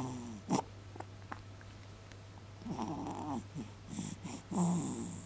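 Young baby making short grunting, squeaky vocal noises while being bottle-fed, in three brief bouts: near the start, about three seconds in, and again about four and a half seconds in.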